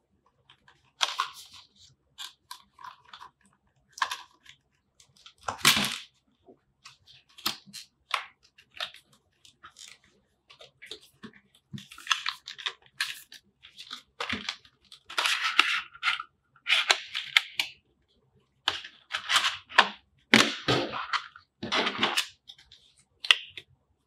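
Cardboard and plastic packaging being handled and opened by hand: irregular taps, clicks and scrapes, with longer stretches of rustling as the clear plastic tray and paper card are taken out.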